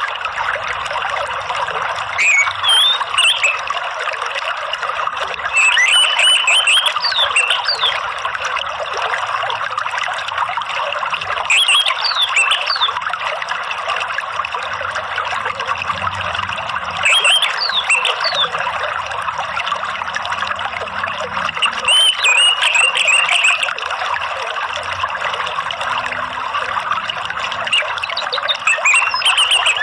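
Steady trickling water, with short runs of high bird chirps and gliding whistled notes breaking in every few seconds.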